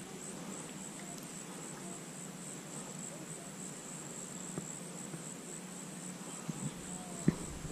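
Faint insect song: a high, evenly pulsing trill that runs on without a break.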